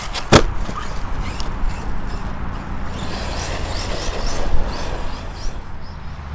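A single sharp knock about half a second in, then the Arrma Outcast 6S electric RC stunt truck running over rough dirt, its motor whining in short rising spurts a few times near the middle.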